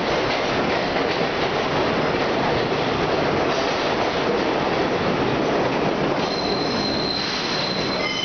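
Vintage IRT subway train of SMEE cars pulling out of the station and running past at close range: a steady rumble and rattle of steel wheels on the rails. A high-pitched wheel squeal joins in about six seconds in as the last car clears the platform.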